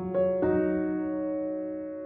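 Soft piano music: a couple of notes struck in the first half second, then left to ring and slowly fade.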